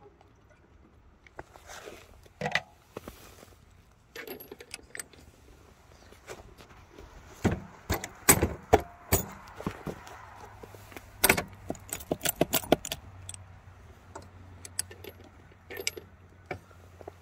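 Metal clinking and knocking of a ride-on railroad car's cast-iron coupler and its safety chain being worked by hand, with a run of sharp knocks about halfway through. The couplers are frozen stiff.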